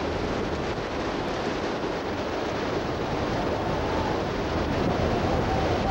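Hurricane-force wind blowing hard across the camcorder's microphone: a steady, loud rush with faint whistling tones that rise and fall.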